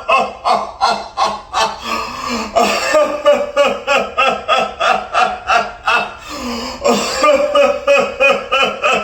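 A man doing deliberate laughter-yoga laughter, a steady run of short voiced 'ha' pulses about four a second, in a 'sneezing laughter' exercise where mock sneezes are turned into laughing.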